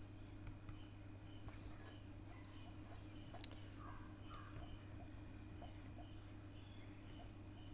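Quiet background noise: a steady high-pitched tone over a low hum, with a few faint ticks.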